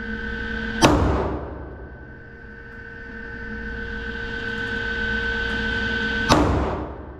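Two 9mm pistol shots about five and a half seconds apart, each ringing off the walls of an indoor range, over a steady hum.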